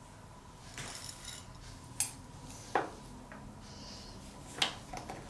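Light metallic clicks and rustling as a thin annealed titanium strip is handled in the fingers for bending, with three sharp clinks: about two seconds in, near three seconds, and near the end. A faint steady high whine runs underneath.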